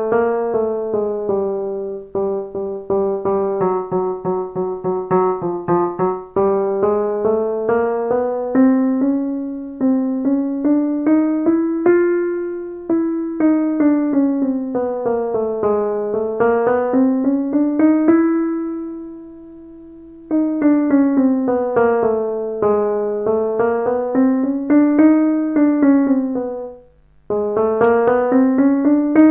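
Kurzweil KA90 digital piano playing quick broken-chord runs that sweep up and down in waves, with one chord held for a couple of seconds about two-thirds through and a brief pause near the end.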